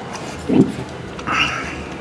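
A person drinking soybean paste soup straight from a thermal food jar. About half a second in there is a short, low throaty grunt, followed a little later by a brief, airy slurp.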